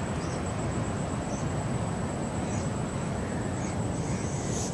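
A small bird chirping briefly about once a second, over a steady low rumble of outdoor background noise.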